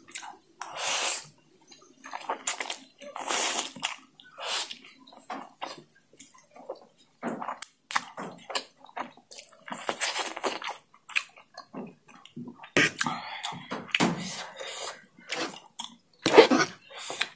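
Close-miked slurping of oily chilli oil noodles and wet chewing, in irregular bursts of half a second to a second, several of them loud.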